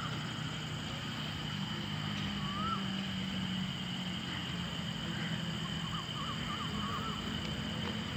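Outdoor ambience: a steady high-pitched hum and a low hum run under a few short bird chirps, one about two and a half seconds in and a quick run of them about six to seven seconds in.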